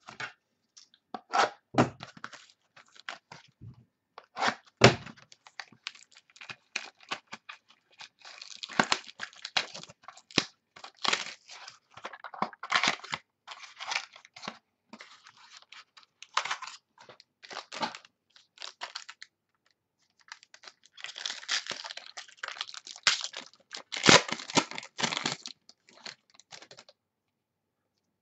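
Hands handling trading cards and their packing: irregular rustling, crinkling and tearing of plastic and tape, with sharp clicks. The busiest, loudest stretch comes a few seconds before the end.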